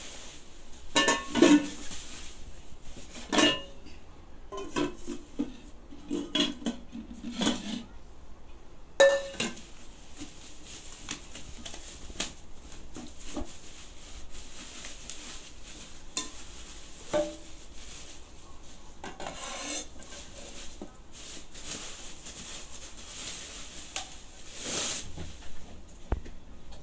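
Metal non-stick pans and pots knocking and clinking against each other as they are handled, with a few sharp ringing clanks in the first nine seconds and then lighter knocks under the rustle of plastic bubble wrap being pulled off.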